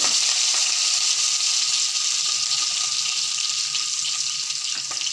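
Chopped onion sizzling in hot oil with a tempering of dried red chillies, lentils, mustard and cumin seeds. A steady loud hiss that eases slightly toward the end.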